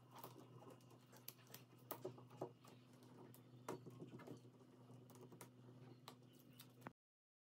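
Faint scattered taps, ticks and scratches of fingers handling the back of a mirror tile and its adhesive pads, over a low steady hum.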